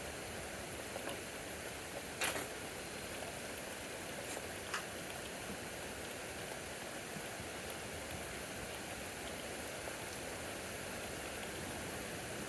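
Heavy rain falling in a steady downpour, with a few sharp taps of drops striking nearby surfaces, the loudest about two seconds in.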